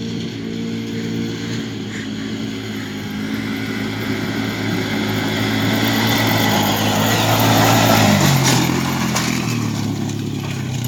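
Riding lawn mower engine running steadily under load as the machine is driven. A rushing noise builds up alongside it and peaks about eight seconds in, where the engine pitch drops as it slows.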